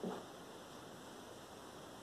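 Faint, steady hiss of room tone, with one brief soft sound right at the start.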